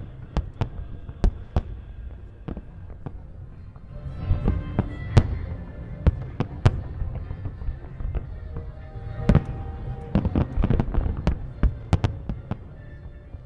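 Aerial fireworks bursting: many sharp bangs over a low rumble, coming in rapid volleys about four seconds in and again from about nine seconds in.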